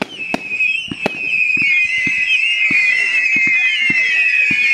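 Whistling fireworks: several high-pitched whistles shrieking at once, wavering and drifting slightly lower in pitch, growing louder about a second in, over scattered sharp bangs.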